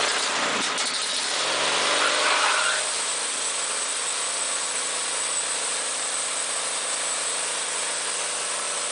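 Wood-Mizer LT40 HD G24 sawmill's engine running steadily, with a sound rising in pitch for a couple of seconds about a second in, then settling back to even running.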